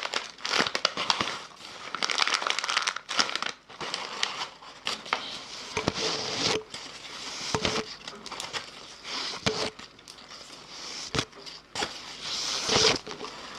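Close-miked ASMR mouth sounds: a quick, irregular stream of clicks and smacks, with a few short deeper pops now and then.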